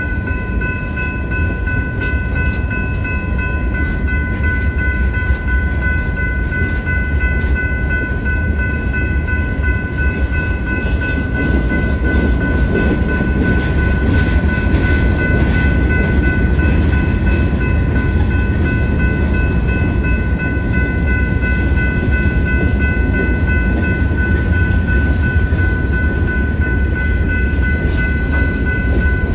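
Freight cars rolling through a grade crossing: a steady, loud rumble of steel wheels on rail that grows a little louder about halfway through. Over it the crossing's electronic warning bell rings on without a break.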